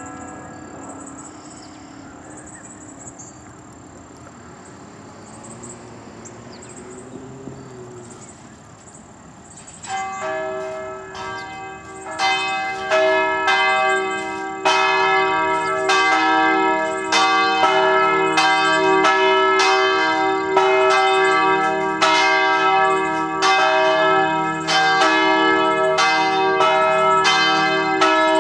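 Church bells ringing for the noon chime. A lull with a fading ring comes first, then about ten seconds in several bells start striking, about one to two strokes a second, their tones overlapping into a loud continuous peal.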